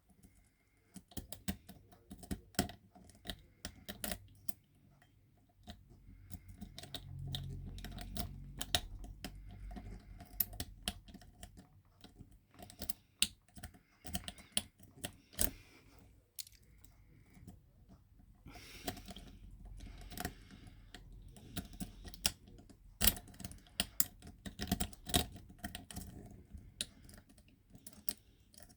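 Hook pick raking and lifting the pin tumblers of a Yale-profile rim cylinder under light tension: many irregular light metallic clicks and scrapes, with low handling rumble in places.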